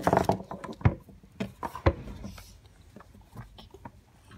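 A quick flurry of clicks and knocks, then two sharp knocks about a second apart with a few lighter taps between, fading to faint handling noise.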